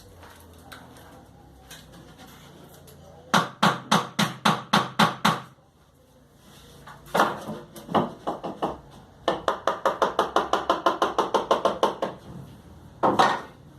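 Hammer blows on wood in runs of quick, even strikes: a run of about four a second, a few irregular blows, then a faster run of about eight a second, and one last heavy blow near the end.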